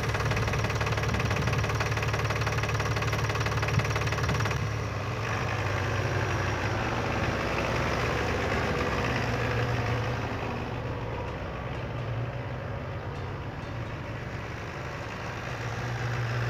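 Three-cylinder Ford diesel engine of a Farmtrac 6050C DT tractor running steadily while the tractor drives in a tight turn. The sound turns duller about five seconds in.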